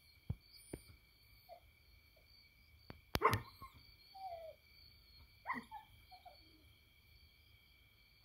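A dog barking and yelping a few times, the loudest bark about three seconds in, with short falling yelps after it. Under it runs a steady high-pitched drone, and there are a few sharp clicks near the start.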